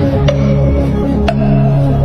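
Background music: a low, sustained droning chord with a sharp percussive hit about once a second.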